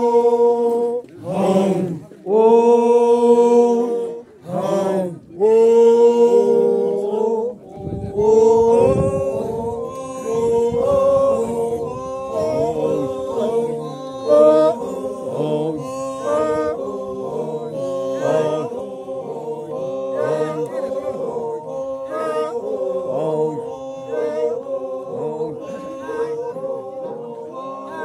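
A group of men singing together with no instruments. Long held notes broken by short pauses give way, about eight seconds in, to a quicker chant of short notes stepping up and down.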